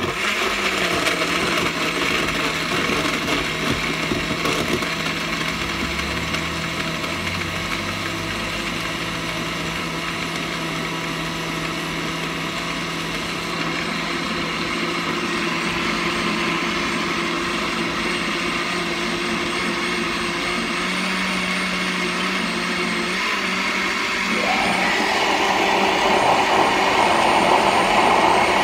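SQ Professional countertop blender switched on and running steadily, its motor blending strawberries, banana and milk into a smoothie. It starts suddenly and grows louder and brighter near the end.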